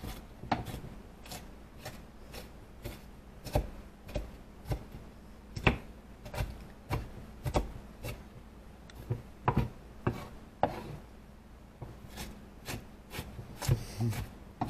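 Knife chopping on a cutting board: a string of sharp, uneven strokes, about two a second.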